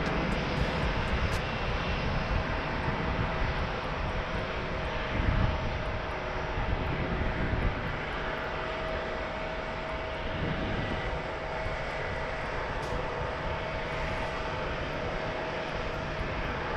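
Jet airliner engines running: a steady roar with a steady high whine over it.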